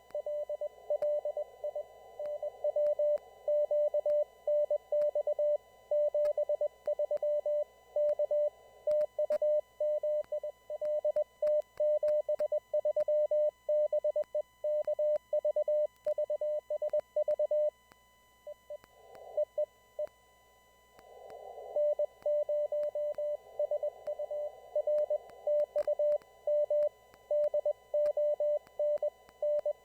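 Morse code (CW) from an amateur radio station: a single steady tone keyed rapidly on and off in dots and dashes, heard over a narrow band of receiver hiss. The keying pauses for a couple of seconds a little past the middle, with a short burst of static, then resumes.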